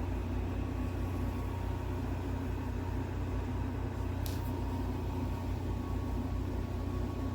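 Steady low rumble with a faint hum, played as a sleep/ambient sound through a bedside alarm clock's small speaker. A brief high tick about four seconds in.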